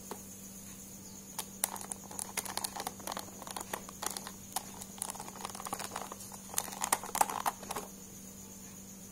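Small hard clicks and rattles of rotary-tool accessories and their plastic case being handled, as a cylindrical accessory is worked out of its snap-in plastic slot. The clicking starts about a second and a half in and stops near the end.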